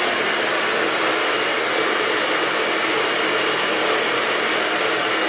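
Handheld hair dryer running: a steady rush of blown air with a faint, steady high whine from its motor.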